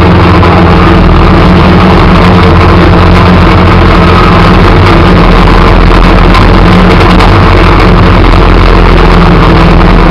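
Engine of a snow-plowing vehicle running loud and steady while its blade pushes snow.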